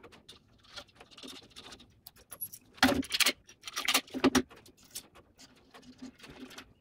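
Steel jig plates clinking and knocking against each other and the steel bench as they are handled and clamped, with small metallic clicks of nuts being fitted onto studs. The loudest knocks come in two clusters, about three and four seconds in.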